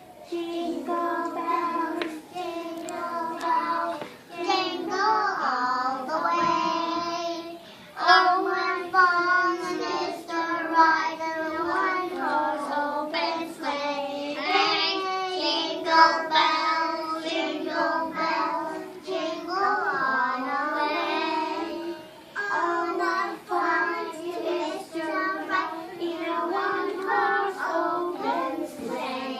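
A group of young children singing a song together, holding sustained notes over a steady melody.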